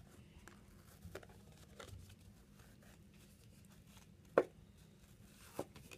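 Faint handling noise from the parts of a dismantled floppy disk being fiddled with: scattered light clicks and rustles, with one sharp click about four seconds in and a smaller one near the end.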